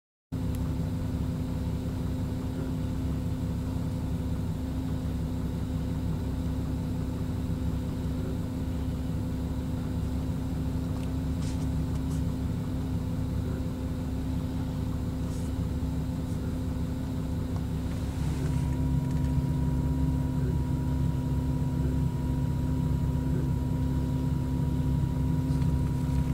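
2009 Porsche 911 Carrera's 3.6-litre direct-injection flat-six idling warm, a steady hum with a few steady tones over it: the unusual noise the owner hears only at warm idle. About 18 seconds in the sound grows a little louder and a higher steady tone joins in.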